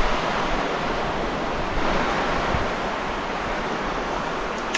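Steady rush of sea waves washing on the shore, mixed with wind on the microphone, swelling slightly about two seconds in.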